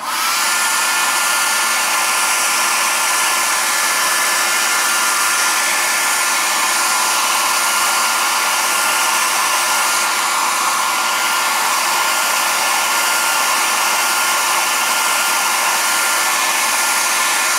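Handheld hot-air blower running steadily, an even rushing hiss with a faint steady whine, switched on right at the start. It is heating the adhesive under a cracked iPad screen to soften it.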